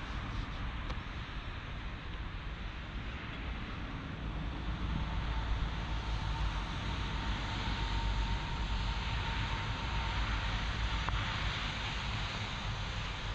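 A vehicle passing, its sound swelling over several seconds and then easing off, with a faint steady whine in the middle, over a steady low rumble.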